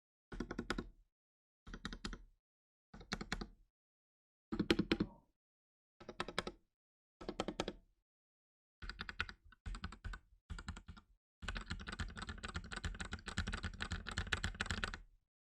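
Typing on a Ducky One 2 SF 65% mechanical keyboard with Cherry MX Silver Speed switches: six short bursts of quick keystrokes about a second and a half apart, then a few shorter bursts, then about three and a half seconds of continuous typing near the end.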